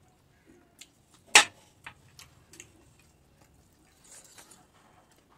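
Small ticks and clicks of eating by hand from a steel plate, with one sharp clink about a second and a half in. Soft squishing of fingers mixing curry gravy into rice comes near the end.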